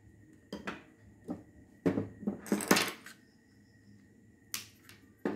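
Metal hand tools, a screwdriver among them, clinking and knocking on a wooden tabletop as they are handled and set down. There are several separate short knocks and clinks, the loudest near the middle.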